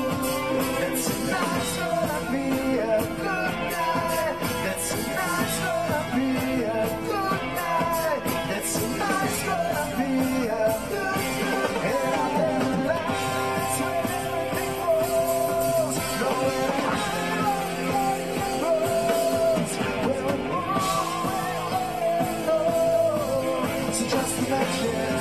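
A live rock band playing: a male lead vocal sung into a microphone over electric guitar, bass guitar and drums, with steady cymbal hits.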